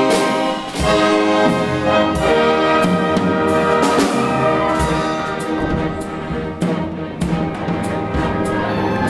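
Brass-heavy orchestral music with sustained chords and repeated percussive hits.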